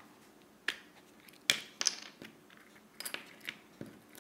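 Black+Decker rotary tool, switched off, being handled in gloved hands at its nose where the cutting disc is mounted: scattered small clicks and taps, the loudest about a second and a half in.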